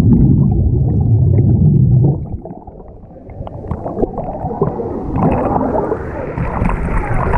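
Churning water and bubbles heard underwater, from a camera dipped into a wave-driven artificial river: a loud, muffled low rumble for about two seconds, then quieter. About five seconds in, the fuller rush of surging water returns as the camera comes back up.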